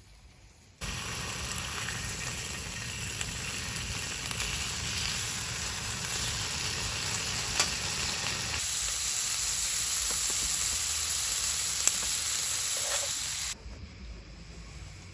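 Food sizzling in hot oil, a steady dense hiss with a few sharp pops, starting abruptly about a second in and cutting off suddenly near the end.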